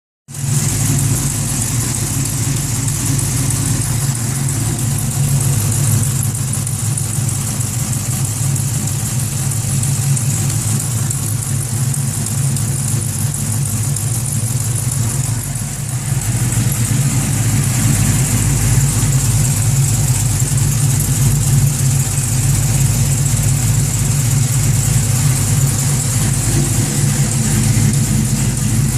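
LSX V8 in an S10 race truck with long-tube headers running steadily at idle, getting a little louder about halfway through. Through it runs a weird clanking that the owner cannot place: it could be an exhaust leak, the valvetrain or the long-tube headers.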